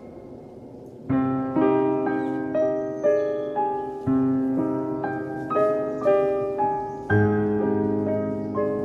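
Background piano music: after a quiet first second, piano notes and chords come in and carry on at an even, unhurried pace.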